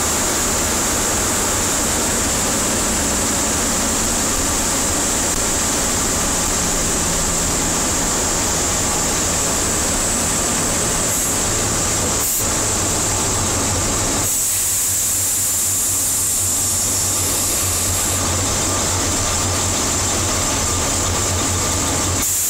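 Avro Lancaster's four Merlin V12 engines droning at low power with rushing air and airframe noise, heard from inside the nose as the bomber rolls down the runway after touchdown. About two-thirds of the way through, the rushing noise thins while the low engine drone carries on.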